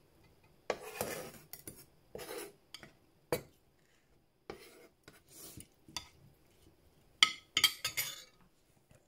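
A metal spoon and fork tossing a tofu salad in a glass dish: irregular soft scrapes and stirring, with sharp clinks of metal on glass, loudest a couple of seconds before the end.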